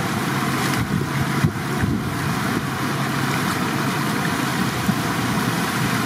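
Steady rush of fast-flowing water churning over rocks, with a brief thump about a second and a half in.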